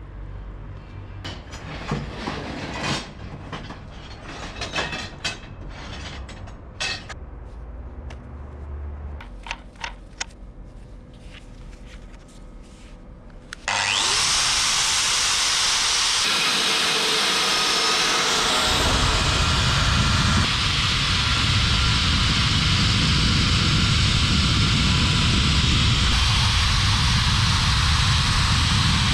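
Scattered knocks and clicks of handling, then about halfway through an angle grinder starts with a brief rising whine and runs at full speed. A few seconds later its conical diamond bit bites into the tile, grinding dry around the edge of a hole to widen it, with a deeper, heavier grinding sound that holds steady.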